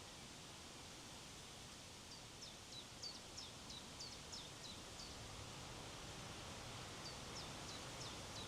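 Wind blowing as a faint, steady hiss, with a small bird calling a quick series of short, high, downward-sliding notes, about three a second, from about two seconds in and again near the end.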